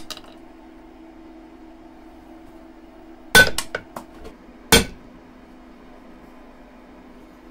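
Hammer blows on the anvil of a steel bench vise, striking a 3D-printed recycled-PET test part in an impact test of its strength. Two sharp metallic blows about a second and a half apart near the middle, the first ringing and followed by a few lighter knocks, and another blow right at the end.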